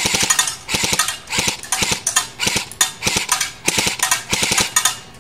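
Matrix AGM STG-44 electric airsoft rifle firing on full auto in a quick string of short bursts, each burst a rapid run of clicks from the motor-driven gearbox.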